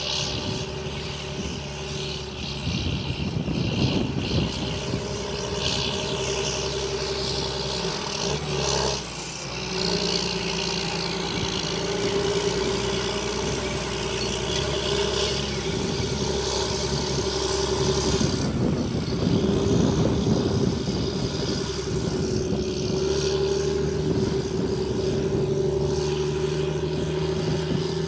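Large John Deere tractor's six-cylinder diesel engine running under load while pulling a slurry tanker, with a steady high whine over the engine note. The sound changes abruptly about nine seconds in and again about two-thirds of the way through.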